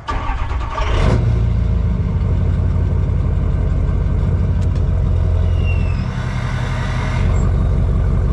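Truck engine starting, catching about a second in and then running steadily.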